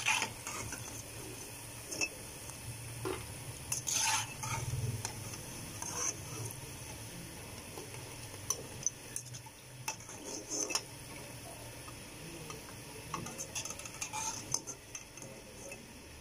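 Pakoras sizzling steadily in hot oil in a kadhai, with a metal spatula scraping and clinking against the pan now and then as they are lifted out.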